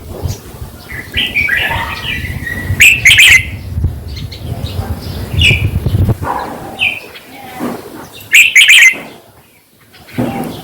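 Red-whiskered bulbul singing: short, bright chirping phrases, loudest about three seconds in and again near the end, over a low rumble in the first six seconds.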